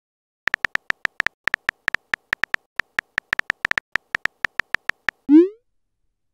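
Simulated phone-keyboard typing clicks from a texting-story app: a quick, uneven run of short clicks as a message is typed. It ends with a short rising swoosh as the message is sent.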